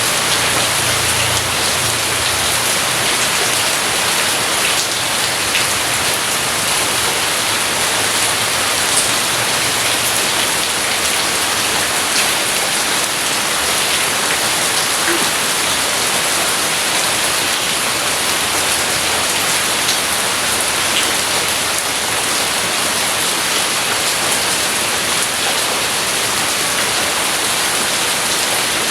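Steady heavy rain falling, a dense even hiss with scattered individual drop ticks. A low rumble, likely distant thunder, sits under it for roughly the first ten seconds, then fades.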